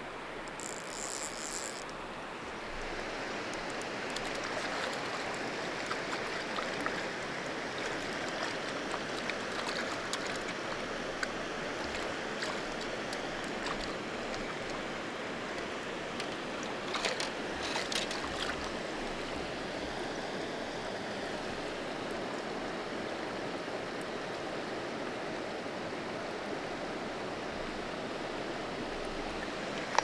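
Steady rush of river water flowing over rocks. About a second in there is a brief high-pitched sound, and just past the middle a short cluster of sharp clicks stands out above the water.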